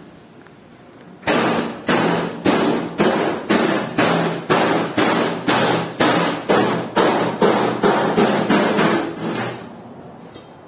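A hammer striking metal in a steady run of blows, about two a second, each with a short ringing tail; it starts about a second in and stops near the end.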